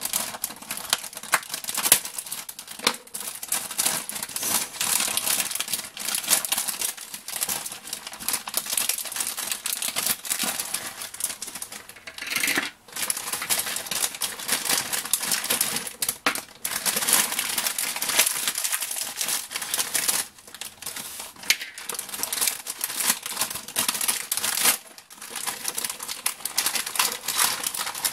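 Plastic polybag crinkling and rustling, with small LEGO pieces clicking and rattling against each other as a mini set is unpacked. The noise runs on with only brief pauses.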